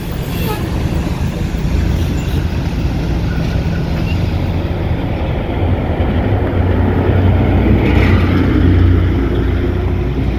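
Mercedes-Benz coach's diesel engine running with a steady low drone as the bus passes close and turns in, with other road traffic going by near the end.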